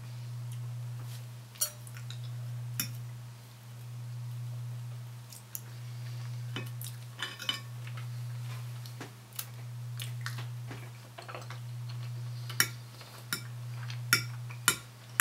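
Metal knife and fork clinking and scraping against a ceramic plate while the last scraps of food are picked up: scattered sharp clinks, the loudest near the end. Under it runs a steady low hum that swells and fades about every two seconds.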